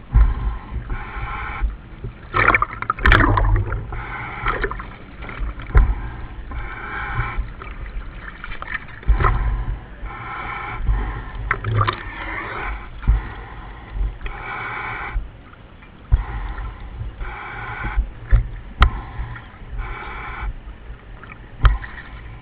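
Diver breathing through a surface-supplied dive helmet, heard over the dive radio: repeated hissing breaths about every two seconds, with bubbling rumble and scattered knocks underneath.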